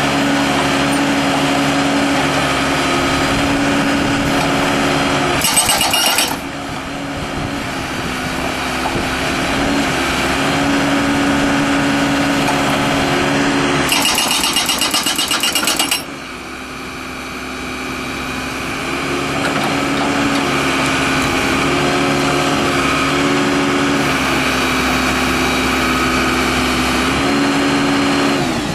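Allied 740 hydraulic hammer on a Case 590 Super L backhoe breaking concrete, the backhoe's diesel engine running steadily under load. Two short spells of rapid, sharp hammering stand out, about six seconds in and from about fourteen to sixteen seconds, each followed by a brief drop in level.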